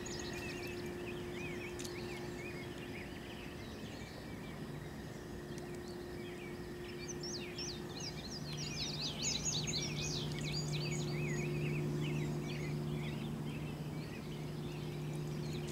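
Small birds chirping in quick, overlapping high calls, busiest from about seven seconds in, over a steady low hum.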